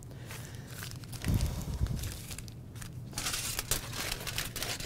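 Heavy-duty aluminum foil packet crinkling and crackling as it is picked up and handled, starting about three seconds in, after a few low thumps.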